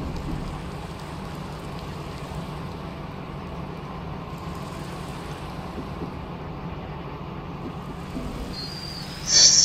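Stockholm metro train running, heard from inside the car: a steady rumble and hum of wheels on rail and motors. Near the end a loud, high-pitched squeal or tone sets in.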